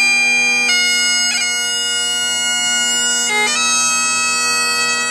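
Bagpipes playing a slow tune over a steady drone, with quick grace-note flicks at the note changes.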